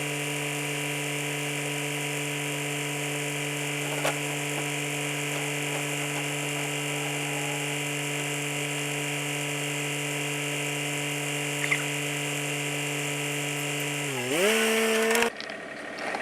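A small electric motor running steadily at an even pitch. Near the end it sags in speed and picks up again, then cuts off suddenly.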